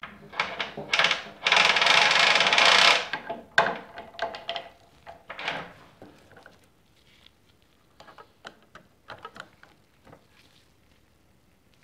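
Honda ATC 90 roller drive chain rattling as it is pulled around the rear sprocket, loudest for the first three seconds. Separate metallic clicks follow as the chain links are handled, thinning out toward the end.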